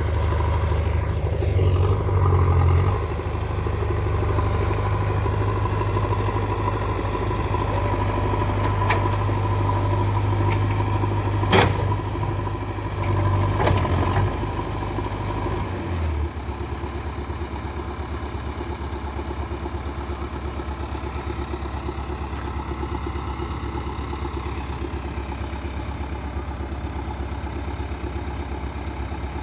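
An engine idling steadily with a low hum. A sharp knock comes a little before halfway through. Just past the middle the idle drops to a quieter, steadier note.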